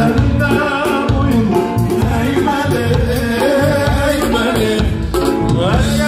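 Loud live band music with a singer over a steady dance beat, a long-necked saz (bağlama) among the instruments: Turkish folk dance music.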